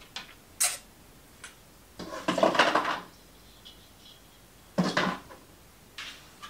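Christmas tree ornaments clinking and rattling against each other as they are taken off the tree and put into a cardboard box: a short click, a longer rattle about two seconds in, and another sharp clink about five seconds in.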